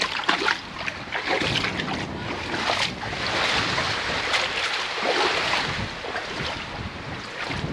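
Water swishing and splashing around a push net being pushed through shallow sea water, in uneven surges.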